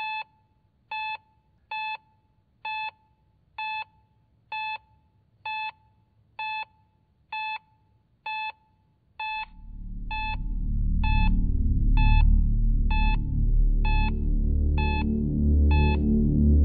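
Heart-monitor beeps, short and even at a little over one a second, steady throughout. About halfway in, a deep swelling drone rises underneath and soon drowns the beeps.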